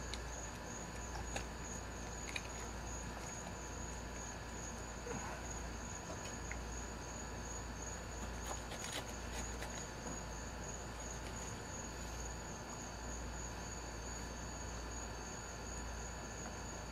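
Crickets chirping in a steady, high, continuous trill over a low hum, with a few faint clicks from handling.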